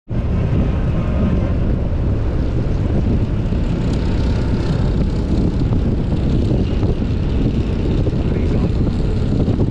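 A motorcycle cruising at highway speed: steady wind rush buffeting the microphone over the engine's drone.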